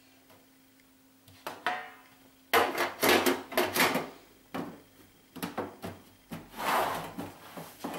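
A series of close knocks and rubbing, scraping handling noises, starting about a second and a half in and coming in irregular bunches.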